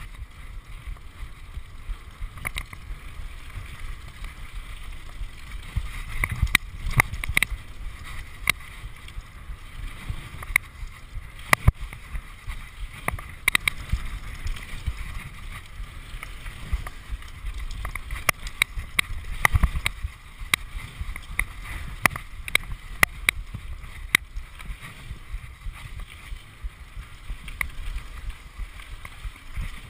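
Mountain bike descending a gravel forest trail at speed, heard from a chest-mounted GoPro: steady tyre noise on the gravel and wind rumbling on the microphone, broken by frequent sharp rattles and knocks from the bike jolting over bumps.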